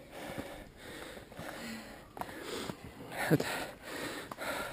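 A trail runner breathing hard and fast close to the microphone, a quick rhythm of noisy breaths in and out. A short voiced sound, falling in pitch, comes a little over three seconds in.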